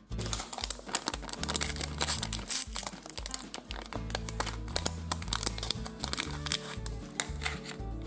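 A glossy plastic packet crinkling and rustling as it is handled and torn open by hand, over steady background music.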